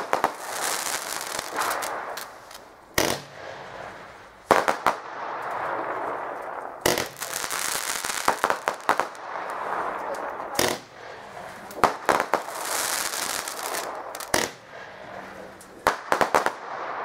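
Weco 'Thousand Islands' fan cake (Fächerbatterie) firing: sharp shots every one to four seconds, some in quick clusters of two or three. Each shot is followed by a few seconds of dense fizzing and crackling from the bursting stars.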